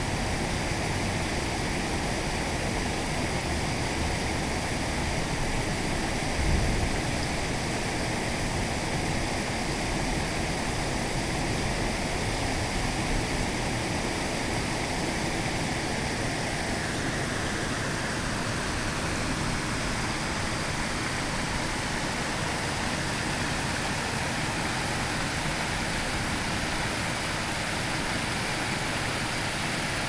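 Small creek waterfall spilling over a low rock ledge into a pool: a steady rushing of falling water. A brief low thump comes about six and a half seconds in.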